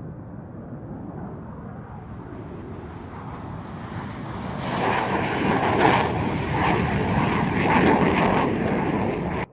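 Fighter jet engine noise as a jet takes off, growing loud about halfway through, then cutting off abruptly near the end.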